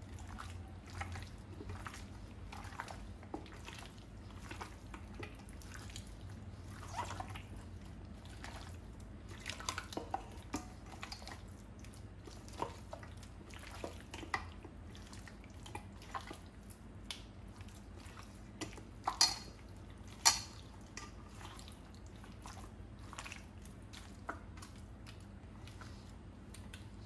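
Wet, sticky squelching and scattered small clicks as a gloved hand rubs a wet spice marinade into raw chicken pieces in a stainless steel bowl, with two louder clicks about two-thirds of the way through.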